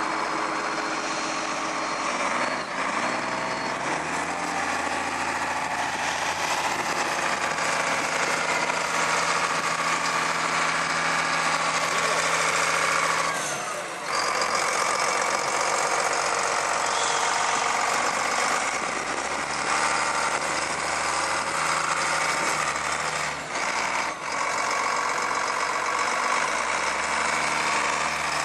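Challenger MT655B tractor's diesel engine running steadily, its speed stepping up and back down several times.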